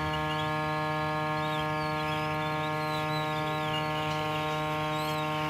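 Handheld hot air rework gun running with a steady, even hum as it blows hot air onto a phone circuit board to reflow the solder under a replacement SIM card holder.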